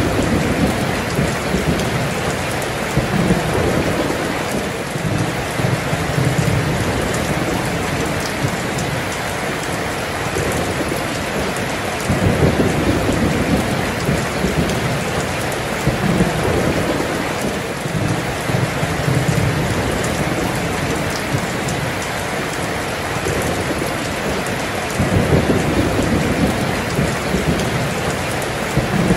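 Heavy rain pouring steadily, with rolling thunder rumbling low several times, the loudest rolls about twelve seconds in and near the end.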